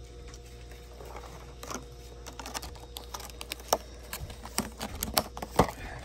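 Irregular light taps and clicks, sparse at first and growing busier toward the end, over a steady low hum.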